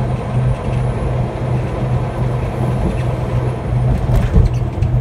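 Road noise and engine drone inside a truck cab at highway speed, with a low hum that swells and fades about twice a second. A few low thumps come about four seconds in.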